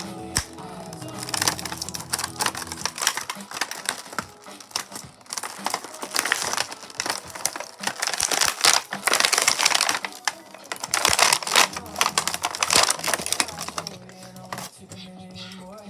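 Plastic packaging being crinkled and crackled in irregular handfuls, as a toy is unpacked.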